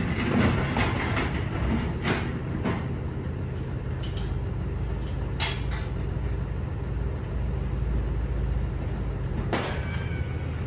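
Delivery truck's engine idling with a steady low rumble. A few sharp knocks and clatters sound over it.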